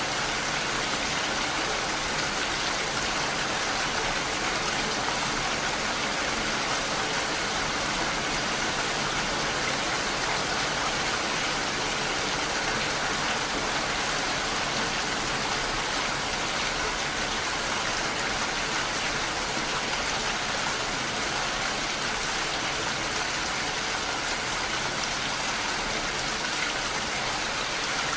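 Steady rain falling, a continuous even hiss that never breaks or changes.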